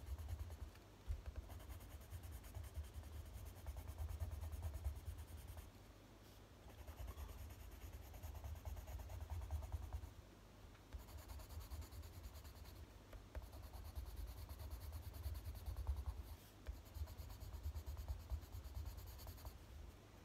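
Faber-Castell Polychromos white colouring pencil scribbling over a printed photo on paper, in runs of quick strokes with brief pauses.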